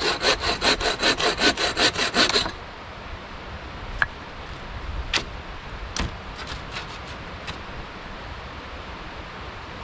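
Bow saw cutting a branch in quick, even strokes, about five a second, stopping about two and a half seconds in. A few light knocks and clicks follow as the saw and wood are handled.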